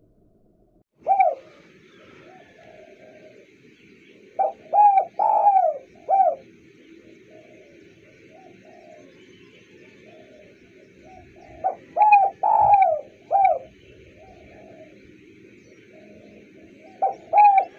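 Spotted dove cooing: one coo about a second in, then three phrases of several short falling coos, roughly six seconds apart. A faint steady high buzz runs underneath.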